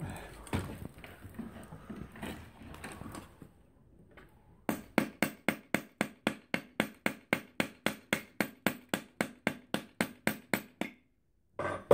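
Rapid, evenly spaced metal-on-metal hammer blows, about four a second for some six seconds, on an Opel Corsa wheel hub clamped in a vise, driving out the wheel bearing. Before them comes a few seconds of tool clatter, and one more knock comes near the end.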